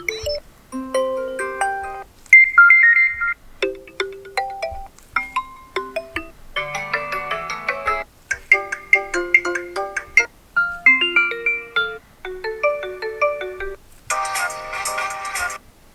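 A series of Xiaomi 12 Pro stock ringtones played one after another, each a short melodic excerpt of a second or two: about ten different tunes in quick succession, separated by brief gaps.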